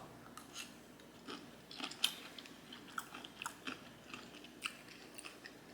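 Close-miked chewing of a homemade California-style sushi roll (rice paper, avocado, cucumber, imitation crab): faint, wet mouth clicks and smacks scattered irregularly throughout.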